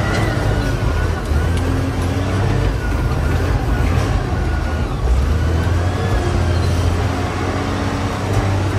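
A heavy diesel engine running steadily, with a low rumble that holds an even level throughout.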